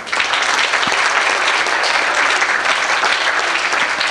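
Audience applauding, a dense steady clapping that starts suddenly as a winner's name is announced.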